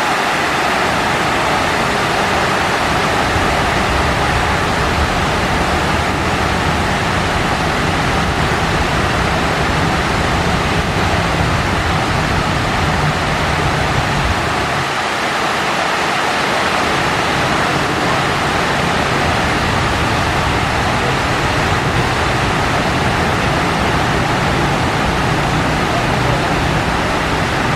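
Water pouring down the granite walls of the 9/11 Memorial reflecting pool and spilling into its central void: a steady, loud rush of falling water, with a low rumble underneath that drops out briefly about halfway through.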